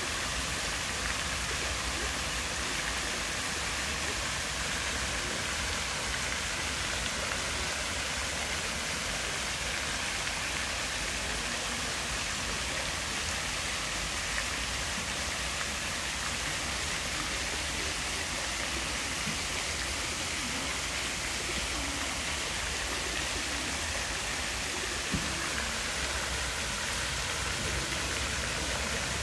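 Many thin fountain jets splashing steadily back into a shallow pool, a continuous even rush of falling water.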